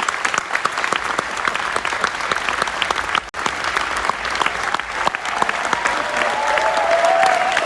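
Theatre audience applauding, a dense steady patter of many hands clapping. A voice calls out briefly above it near the end.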